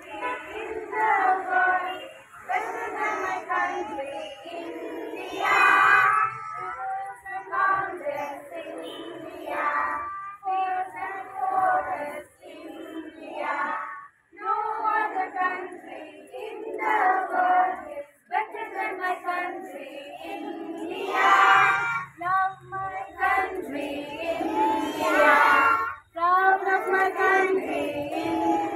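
A crowd of young children's voices raised together in unison, in repeated phrases broken by short pauses, some phrases louder than others.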